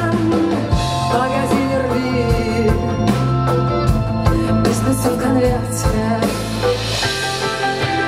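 A rock band playing live, with a voice singing over electric guitars, bass and drums. About a second before the end the bass and kick drum drop out.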